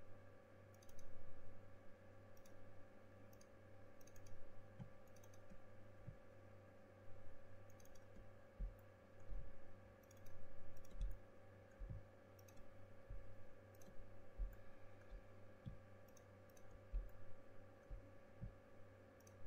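Faint, irregular clicks of a computer mouse as faces and edges are selected in 3D modelling software, a few a second at times, over a steady low electrical hum.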